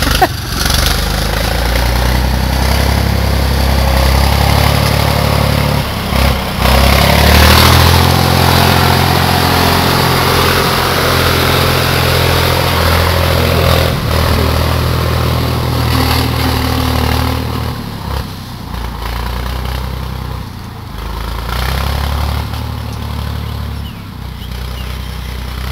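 Tractor front-end loader's engine running under load while it moves a large log, louder from about seven seconds in and easing off after about eighteen seconds.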